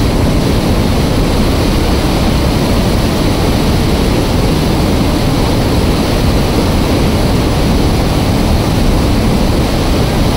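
Water discharging through an open dam spillway: a loud, steady rushing, heaviest in the low end.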